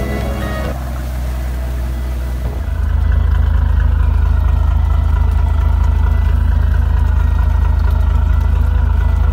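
Yanmar 320 hp marine diesel engine idling, heard at its wet exhaust outlet as cooling water pours out. It becomes a loud, steady, low pulsing sound from a little under three seconds in.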